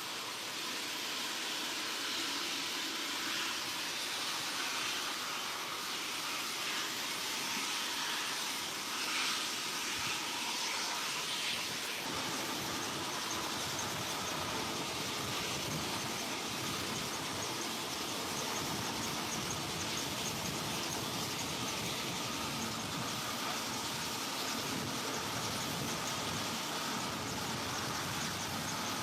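Military helicopter running, a steady mix of turbine hiss and rotor noise. The deeper part of the sound grows stronger about twelve seconds in.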